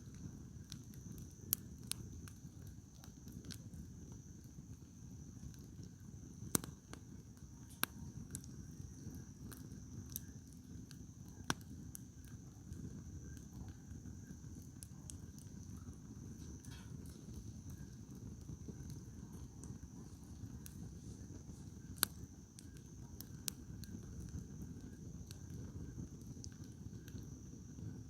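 Wood campfire crackling, with scattered sharp pops from the burning firewood over a low steady rumble. A steady high trill of insects runs underneath.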